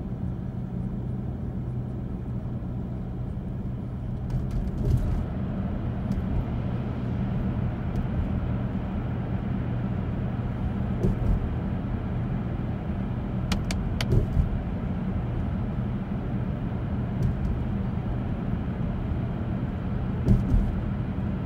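Steady road and engine noise inside a moving car's cabin, with a low hum. It grows a little louder about four seconds in, once the car is in a road tunnel. A few brief clicks are heard along the way.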